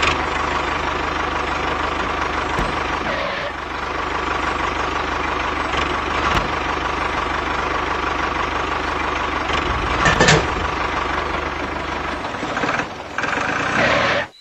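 Tractor engine running steadily with an even low pulse, for a model tractor pulling a cultivator through sand; it cuts off suddenly near the end.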